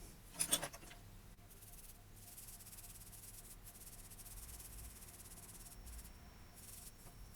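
Faint, steady hiss of a sweat-corroded headphone circuit board being washed clean, after a brief small knock about half a second in.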